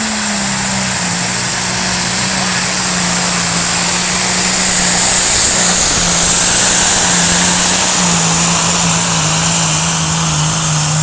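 A pulling tractor's engine at full throttle, hauling the weight sled down the track. A very loud, steady engine drone with a high whine above it; the engine note drops a little in pitch about eight seconds in as it works against the sled.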